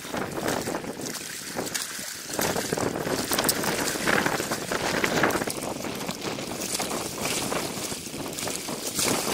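Wind buffeting the microphone in irregular gusts, over water washing against a rocky shore; it grows louder about two seconds in.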